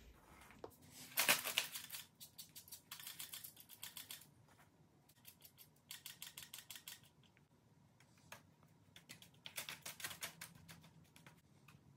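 A hair-dye brush spreading thick bleach-and-peroxide whitening paste over a skull: quick runs of short strokes in several bursts, with pauses between.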